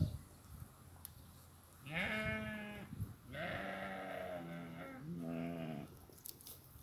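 Goats bleating: three calls, a short one about two seconds in, then a long, wavering one followed at once by a shorter one.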